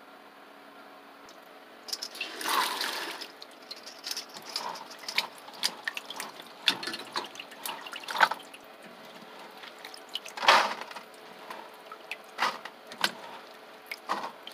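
Shelled green peas being washed by hand in a stainless steel bowl of water. A longer splash comes about two seconds in, then irregular splashing and sloshing as a hand stirs the wet peas and scoops them out.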